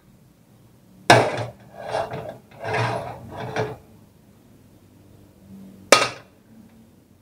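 Kitchen clatter: a sharp knock, then a few seconds of noisy clattering and scraping in three bursts, and another sharp knock near the end.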